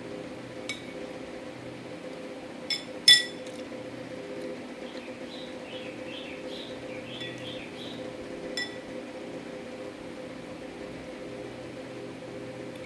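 Metal spoon clinking against a ceramic bowl four times, with a short ringing after each. The loudest is a quick double clink about three seconds in.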